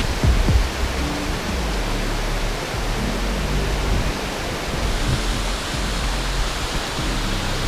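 Waterfall on the Tkhab mountain river pouring steadily, a dense, even rush of water. Faint low notes of background music sit underneath.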